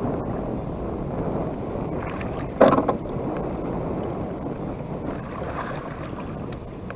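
Steady rush of river current and wind on the microphone from a small boat in fast water, with one short, loud knock or exclamation a little over two and a half seconds in.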